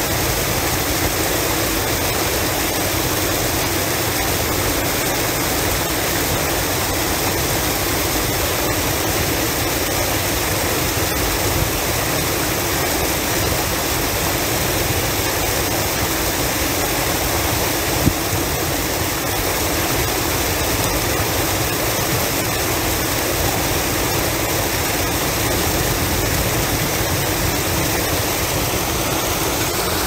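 Waterfall: a steady, unbroken rush of falling water, with one brief click a little past the middle.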